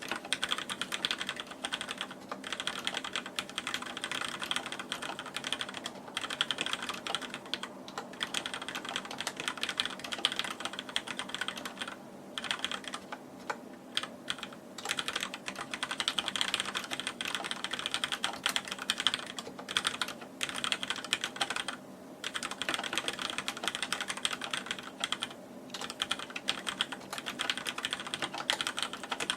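Deck Francium mechanical keyboard with Cherry MX Black linear switches being typed on steadily in fast runs of keystrokes, with a few short pauses.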